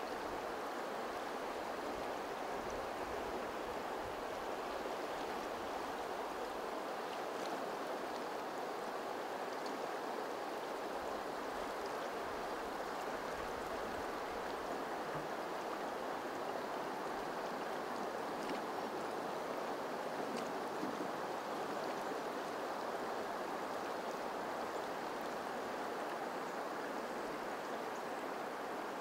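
A wide, shallow river running steadily over a rocky bed, making an even, unbroken water sound.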